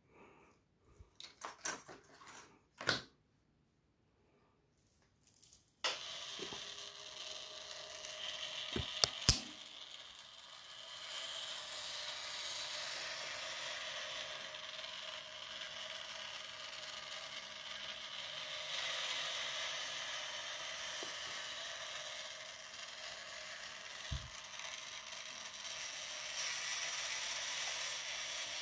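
A few light handling clicks, then about six seconds in a small 45 rpm geared motor starts and runs steadily. It turns two meshing plastic gear wheels that work a wooden flapping-wing linkage. Two sharp clicks come a few seconds after it starts.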